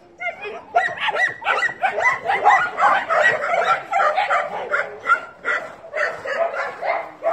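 Several dogs barking and yipping in play: a rapid, overlapping string of short, high barks, several a second.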